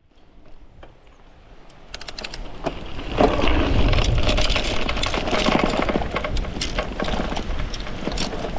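Dry leaves and twigs rustling and crackling underfoot, with many sharp snaps, growing louder from about two seconds in.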